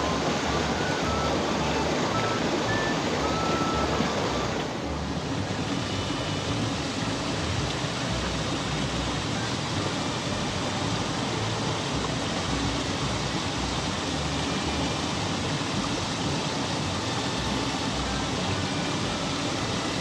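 Mountain stream rushing over rocks: a steady, even noise of flowing water, with a slight shift in its tone about five seconds in.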